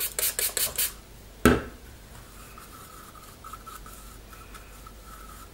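A stirring stick scraping around inside a clear cup as thick white paint is mixed with a little added water to thin it. There is a quick run of scrapes in the first second and a sharp knock about a second and a half in, then softer, steady scraping.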